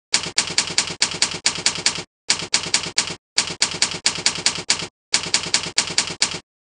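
Typewriter key-strike sound effect: rapid clacks, about five or six a second, in four runs with short pauses between them, as the on-screen text types itself out.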